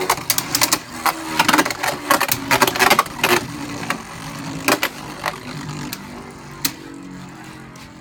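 Two Beyblade Burst tops, Vise Leopard and Blast Jinnius, spinning in a plastic stadium with a steady whir. Rapid clicks and knocks of the tops striking each other and the stadium wall come thick in the first three seconds or so, then only now and then.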